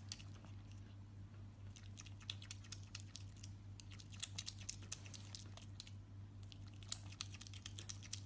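An otter chewing and crunching food, a fast, irregular run of small wet clicks and crunches, over a steady low hum.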